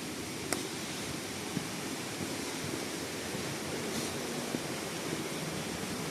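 Steady rushing of a waterfall, with a couple of brief sharp clicks about half a second and four seconds in.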